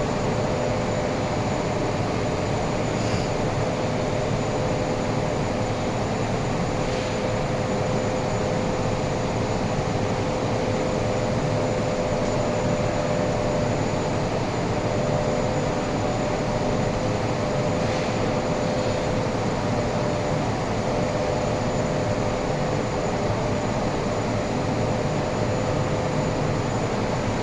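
Steady mechanical running noise from a machine, with an unchanging hum and no change in level.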